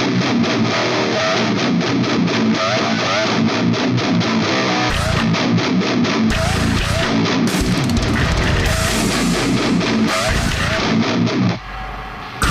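Background music led by guitar, playing continuously, with a brief drop in level near the end.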